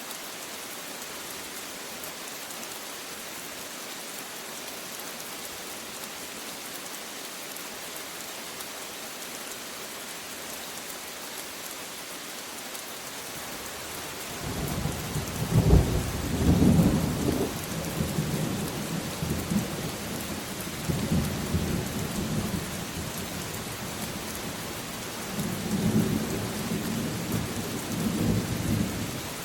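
Steady rain hiss. About halfway through, thunder rolls in: a loud crack followed by long low rumbling, which swells again near the end.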